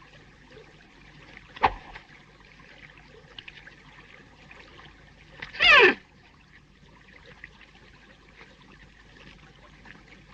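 Faint steady hiss of an old film soundtrack. A single sharp crack comes about a second and a half in, and a brief loud warbling cry, its pitch wobbling up and down, comes about halfway through.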